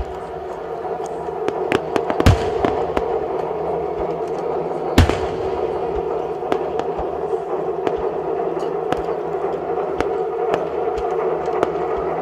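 Aerial firework shells bursting in a fast barrage of sharp pops and crackles, with two louder booms about two and five seconds in, over a steady background rumble.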